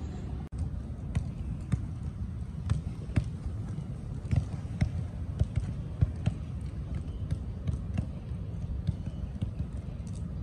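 Footballs being kicked and touched by several players on artificial turf: irregular sharp thuds, several a second, over a steady low rumble.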